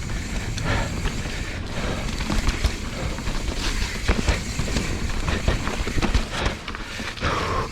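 Mountain bike riding fast down a wet, muddy trail: steady tyre and frame rattle with many sharp knocks as it runs over rocks and roots.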